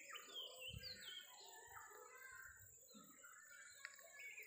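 Faint birdsong: a few quick chirps falling in pitch in the first second or so, then scattered softer calls, over a thin steady high hiss.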